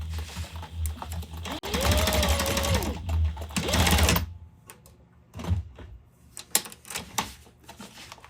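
Electric sewing machine running a narrow zigzag stitch along a cut edge to keep it from unravelling, in spurts for about four seconds with the motor whine rising and falling, then stopping. A few light clicks follow.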